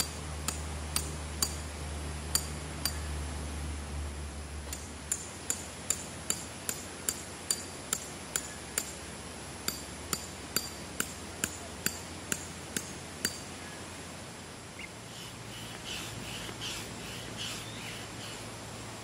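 Metal tent pegs being hammered into the ground: a steady run of sharp, ringing metallic strikes, about two to three a second with a brief pause, that stops about two-thirds of the way through.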